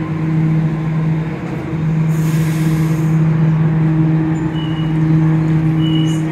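Stationary Sydney suburban double-deck electric train humming steadily, with a burst of air hiss about two seconds in. Two short high beeps follow as its doors open near the end.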